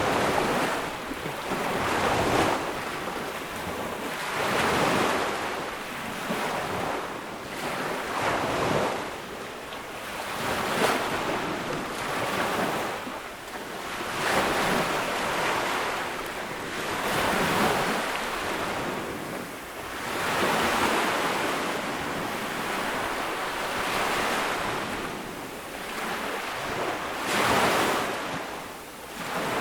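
Ocean waves breaking on a sandy beach, each wash of surf swelling and fading every two to four seconds.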